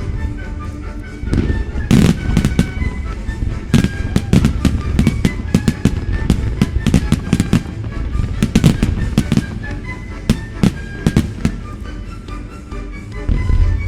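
Fireworks display with dozens of sharp bangs from shells and cakes going off in rapid succession, thickening about two seconds in. Music plays underneath.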